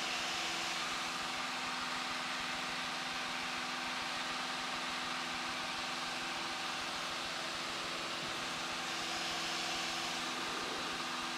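Steady cabin drone of a Cessna 172 Skyhawk's piston engine and propeller in flight, with several steady tones over an even hiss of noise.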